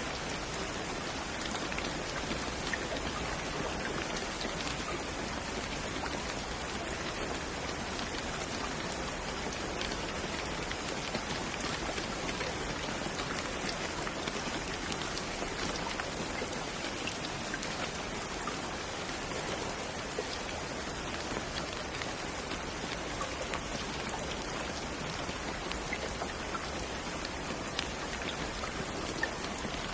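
Steady rain falling on a surface, an even hiss of many small drops with scattered individual patters.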